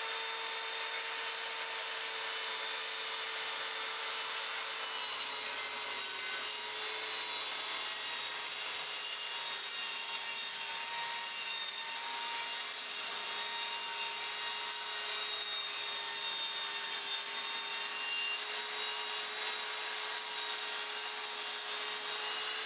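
Evolution R185 CCSL 185 mm TCT circular saw cutting a long straight line through a sheet of OSB: the motor and blade hold a steady pitched whine over the hiss of the blade chewing through the wood.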